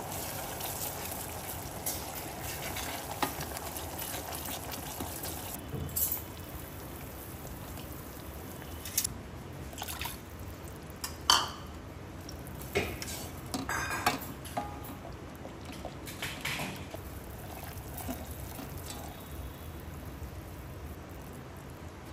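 Sugar syrup bubbling in a stainless steel saucepan as the sugar dissolves, the bubbling quieter after the first five seconds or so. A slotted spoon stirring it knocks and scrapes against the pan's steel sides now and then.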